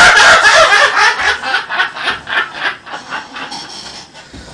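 A man laughing hard in rapid bursts, about four a second, loudest at first and trailing off over about three seconds.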